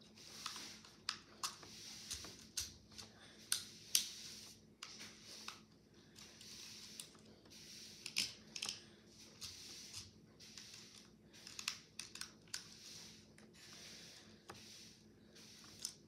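Plastic 12-sided fidget cube being fiddled with: irregular small clicks from its buttons and switches, some sharper than others.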